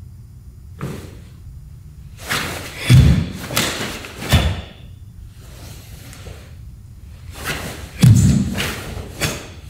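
Bare feet stamping and shifting on a wooden floor, with a karate gi snapping, as the Tekki Shodan kata is performed in horse stance. The sharp thuds come in two clusters: one from about two to four and a half seconds in, and another about eight to nine seconds in.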